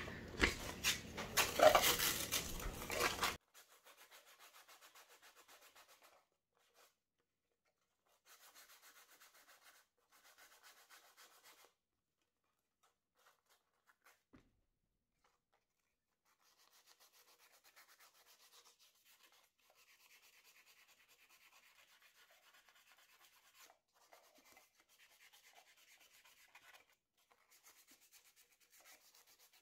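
180-grit sandpaper rubbing back and forth on a pump's metal motor shaft by hand, clearing rust and bumps so the impellers slide back on. The rubbing is loud for the first three seconds or so and cuts off sharply, then continues faint and on-and-off.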